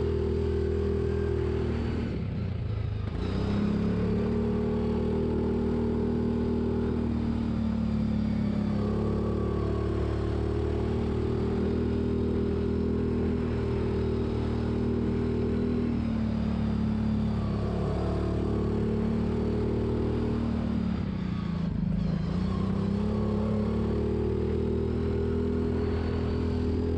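Side-by-side UTV engine running while driving on a dirt track, its pitch steady and dipping briefly about four times as the throttle eases off and picks up again.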